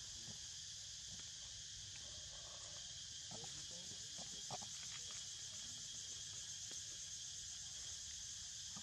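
Steady, high-pitched chorus of insects, with a couple of faint short calls about three and a half and four and a half seconds in.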